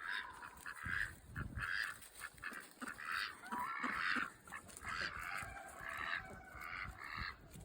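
Farm ducks and Chinese geese calling, a steady run of short calls about two a second.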